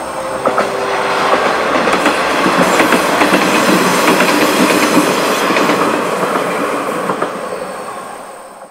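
KiHa 40-series diesel railcar passing, its wheels clicking over the rail joints. It grows louder to a peak mid-way, then fades away.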